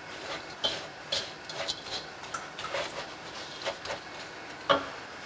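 Wooden spatula scraping and tapping against a nonstick frying pan as it stirs granulated sugar that is starting to melt: irregular light knocks, with one sharper knock near the end.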